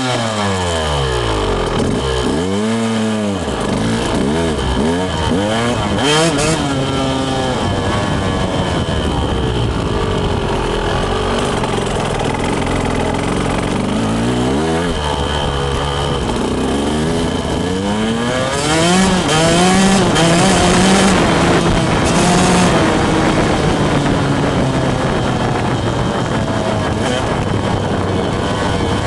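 Dirt bike engine, heard from a camera mounted on the bike, revving up and dropping back again and again as the bike rides, with a steadier stretch in the middle and louder revving about two-thirds of the way through.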